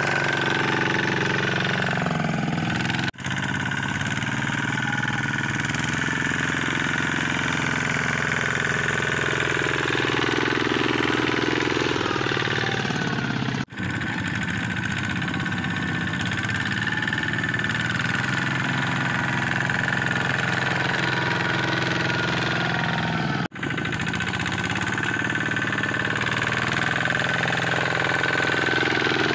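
Single-cylinder diesel engine of a Kubota ZT155 two-wheel walking tractor running steadily while it hauls a trailer of rice sacks through mud. The sound cuts out for an instant three times.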